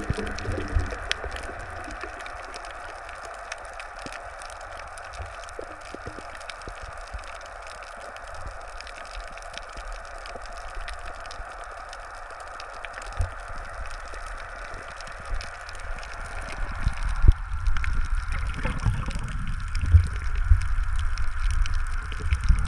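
Underwater sound picked up by a submerged camera: a steady watery hiss with scattered faint clicks and low rumbles of water moving past the housing. Past the middle the low rushing grows louder and more uneven, with a few sharper knocks.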